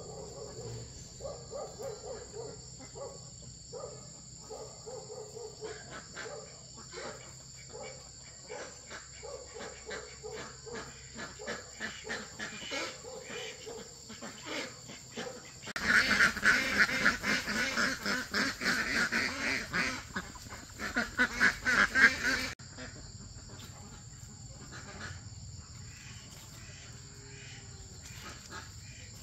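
Ducks quacking repeatedly, with insects droning steadily in the background. About halfway through, the quacking becomes much louder and denser for several seconds, then drops back abruptly.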